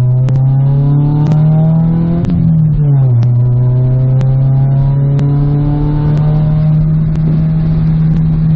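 Honda Integra engine pulling through a gear, its pitch climbing steadily, then falling at an upshift a little over two seconds in and climbing again through the next gear. A light click comes about once a second.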